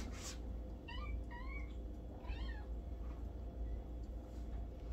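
Kittens meowing: three short, high meows about one, one and a half, and two and a half seconds in, over a steady low hum.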